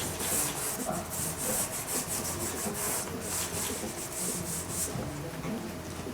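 Dry pastel stick scraping across primed pastel paper in quick back-and-forth strokes, about two a second, easing off near the end.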